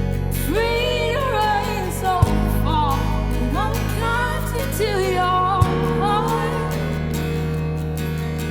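Christian worship song: a sung melody over sustained instrumental chords that change about every three and a half seconds.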